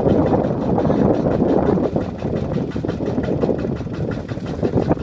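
Kubota walking tractor's single-cylinder diesel engine running hard with a rapid, steady knock while the machine is stuck in deep mud.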